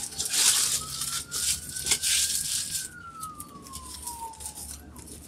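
A siren wailing in one slow sweep, rising in pitch for the first half and falling back in the second. Over it, plastic wrap crinkles and tears as it is pulled off a cardboard box, loudest in the first few seconds.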